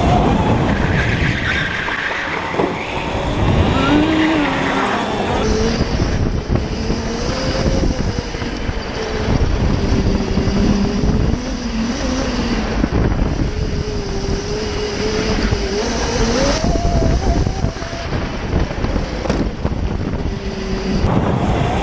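Electric drift kart driven hard: the motor's whine wanders up and down with speed, tyres squeal and scrub in the slides, and wind buffets the onboard microphone.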